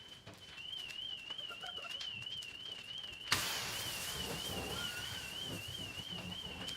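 A high-pitched warbling tone, wavering quickly up and down like an alarm, with a sudden steady rush of noise joining about three seconds in.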